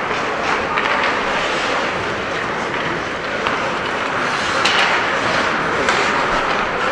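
Steady din of a game in progress, with a few faint sharp knocks.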